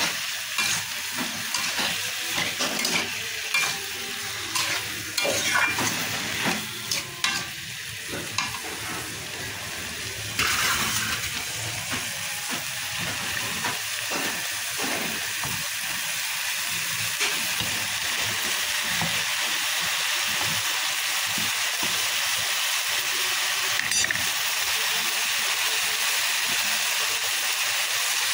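Cubed potatoes and eggplant frying in spiced oil in a metal karahi, sizzling, while a metal spatula scrapes and knocks against the pan for about the first ten seconds; after that a steady sizzle.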